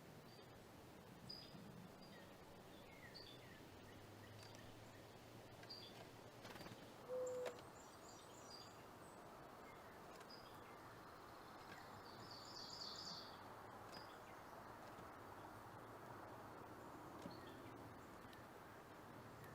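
Faint outdoor ambience with small birds chirping: short, high chirps repeat every second or so, with a busier run of chirping about two-thirds of the way through. A short low note about seven seconds in is the loudest sound.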